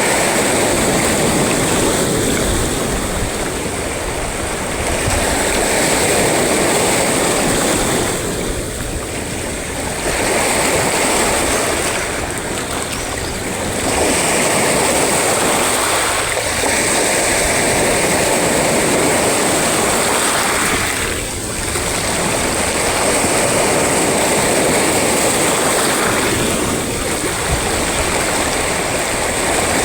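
Sea surf breaking and washing in a continuous rush of water noise that swells and eases every few seconds.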